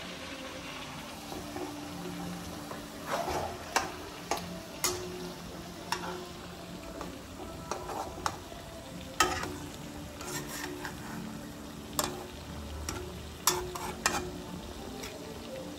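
Suji halwa (semolina) frying in a pan while being stirred. A steady faint sizzle runs under irregular scrapes and knocks of the spatula against the pan.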